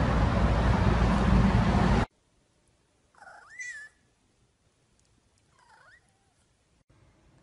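A steady loud rushing noise for the first two seconds cuts off abruptly. A tabby-and-white cat then meows twice: first a louder meow with a rising, wavering pitch, then a softer, shorter one.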